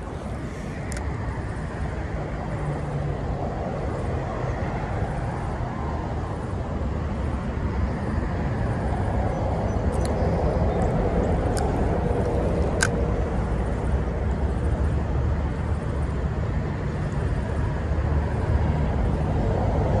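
Steady rumble of road traffic mixed with the rush of creek water over riffles, growing slightly louder, with a few faint clicks.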